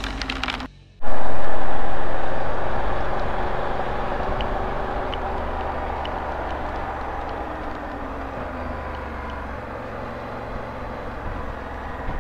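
Honda Africa Twin motorcycle on the move: the engine hum with wind rushing over the microphone. It cuts in suddenly about a second in, loudest at first, then settles to a steadier, quieter level.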